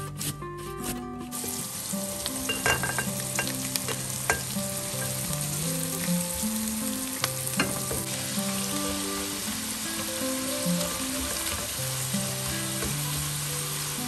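Ground meat and diced onions sizzling as they fry in a nonstick pan, stirred with a spatula that knocks against the pan a few times. In the first second, a potato rasps against a metal grater.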